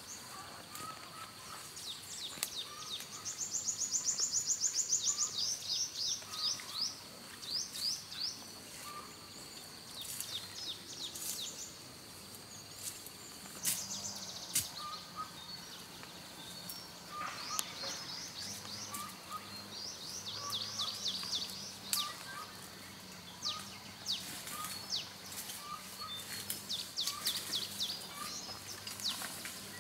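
Small birds singing and calling: a fast trill about three seconds in, then repeated bursts of quick descending chirps, over a steady high tone. Occasional sharp clicks, and a faint low hum from about halfway.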